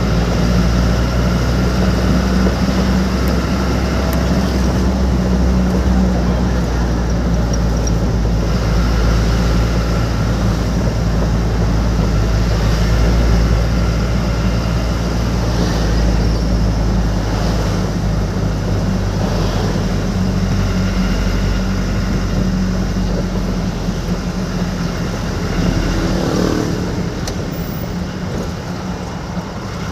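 Vehicle engine running steadily under road noise, a continuous low hum with a hiss above it.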